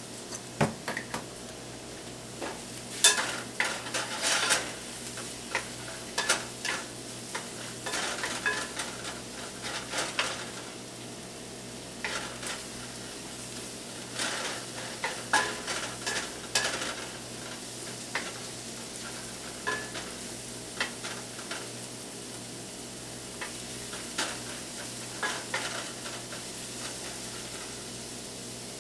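Sliced mushrooms and onions sautéing in olive oil in a frying pan at medium-high heat, stirred with a wooden spatula: irregular scraping strokes against the pan over a steady sizzle.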